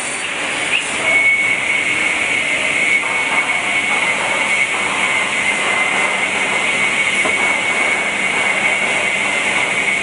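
Automated wood branding and sawing machine running: a steady mechanical noise with hiss, and a steady high whine that comes in about a second in.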